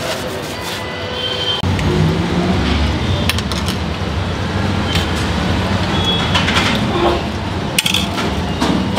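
A metal spoon clinks against steel pans and plates as chaat is served, a few separate sharp clinks, some with a brief ring. Street traffic hums throughout, growing louder and deeper about a second and a half in.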